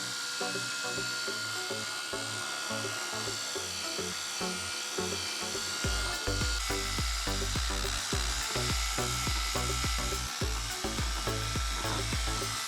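Background music with stepping synth notes; a steady beat with heavy bass comes in about halfway through.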